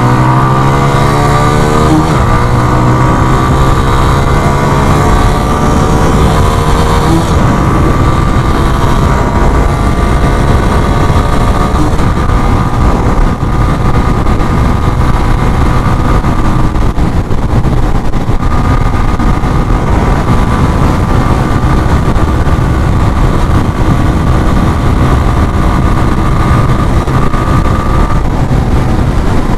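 Suzuki GS 150 SE's single-cylinder four-stroke engine accelerating hard off a drag-race launch, its pitch climbing in each gear with upshifts about two and seven seconds in. It then holds a steady note at speed under heavy wind noise on the microphone.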